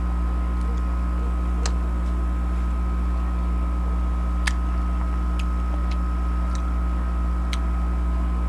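Steady low electrical hum with a few faint steady tones above it, and a handful of small sharp clicks from chewing crunchy unripe mango.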